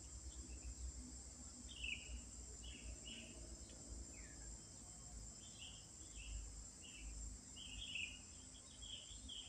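Faint swamp ambience: a steady high-pitched insect drone, with short bird chirps every second or so that come more often in the second half.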